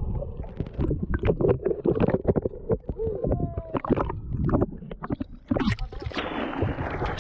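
Muffled underwater sloshing and gurgling against a boat's hull, broken by many sharp knocks, with a couple of short gliding tones a little past the middle. About six seconds in, the sound opens into a loud rush of splashing water and wind as it breaks the surface.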